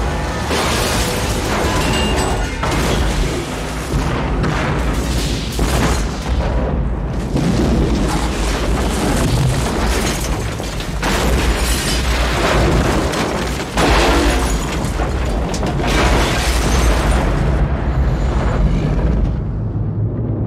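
Movie sound effects of a huge explosion and fireball in a road tunnel: a continuous roar of fire with repeated booms and debris crashes, under a dramatic film score.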